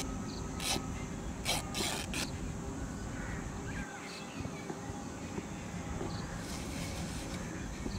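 Outdoor ambience: a steady high insect drone and a few brief bird chirps. Short rustles of cloth being handled come in the first two seconds, and a low rumble falls away about four seconds in.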